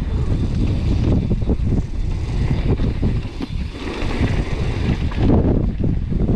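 Strong gusting wind buffeting a GoPro's microphone as a heavy low rumble, with frequent knocks and rattles from a mountain bike riding over rough trail.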